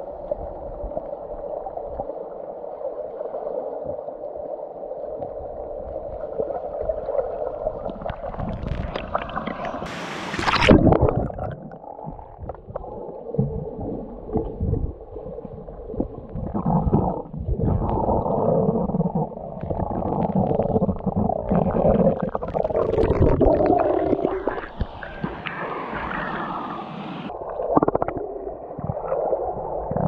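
Muffled underwater gurgling and rumbling of stream water, heard through an action camera held below the surface, with a loud thump about ten seconds in.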